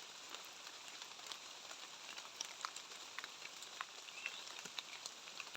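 Steady rain falling, a soft even hiss with scattered drops ticking.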